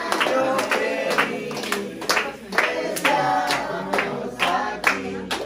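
A group of voices singing a birthday song, with hand clapping in time.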